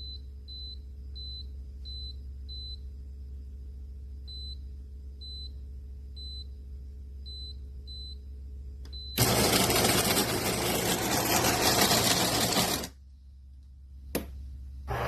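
De'Longhi TrueBrew coffee maker beeping over a steady low hum: a string of short, high beeps in uneven groups. About nine seconds in, a loud noisy run starts, lasts a few seconds and stops; a click follows, and the noise starts again near the end.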